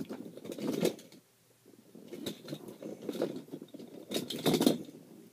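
Irregular rustling, clattering and knocking of toys and other objects being handled and pushed about while searching for a toy monster truck, with a short quiet gap a little over a second in.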